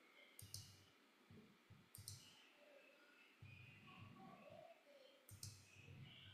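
Faint computer mouse clicks: three clicks, each a quick press-and-release double tick, about half a second, two seconds and five and a half seconds in.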